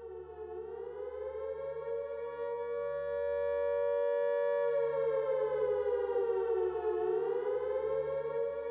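Air-raid siren wailing, fading in over the first couple of seconds; its pitch slowly rises and holds, dips about seven seconds in, then climbs again, over a low steady hum.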